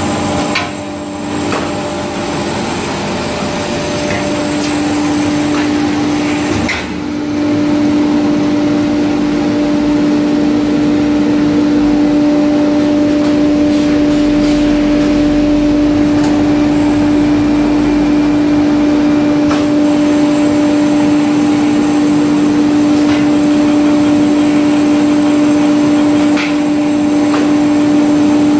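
Automatic twist brush machine running: a steady, loud motor hum and whir while the brush is spun in the machine, with a few sharp mechanical clicks.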